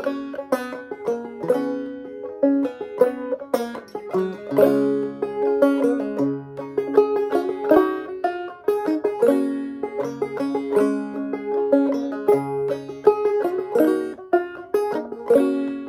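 Five-string banjo played clawhammer style in gCGCD tuning, picking out a melody over changing lower bass notes.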